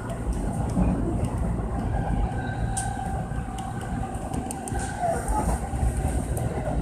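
Tobu commuter electric train running along the track, heard from just behind the driver's cab: a steady low rumble of wheels on rail with scattered light clicks, and a faint whine in the middle.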